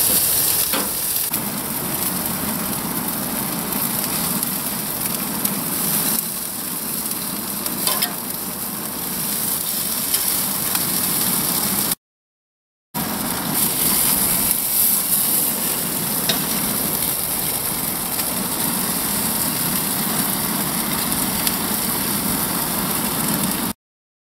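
Chicken pieces and a vegetable skewer sizzling over a gas grill's flames, a steady hiss, with a few light clicks of metal tongs against the food and grate. The sound cuts out for about a second halfway through.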